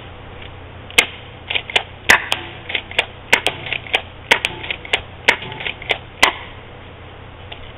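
Crosman Stinger S32P spring airsoft shotgun being pumped and fired over and over to empty its magazine: a quick, uneven run of about a dozen sharp clacks, starting about a second in and stopping after about six seconds.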